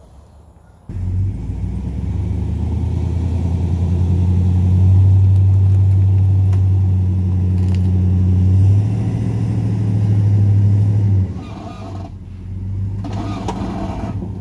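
Dually pickup truck's engine revving hard under load as it strains to pull a travel trailer through soft sand. The note climbs about a second in, holds high for several seconds, then drops back sharply near the end.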